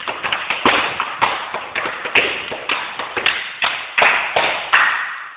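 Sharp hand slaps on boots and legs with stamping feet on a wooden floor in a slapping dance (čapáš), the strong slaps about twice a second with quick runs of lighter ones between.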